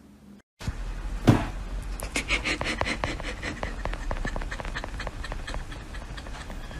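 Husky puppy squeaking and panting while it squeezes through the bars of a wire dog crate, with rapid clicks and rattles from the wire bars and its claws, and one louder knock about a second in.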